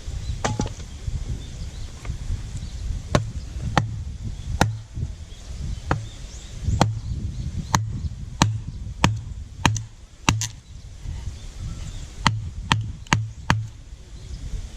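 Firewood being split by hand: about fifteen sharp wooden knocks in uneven runs, with short pauses between them.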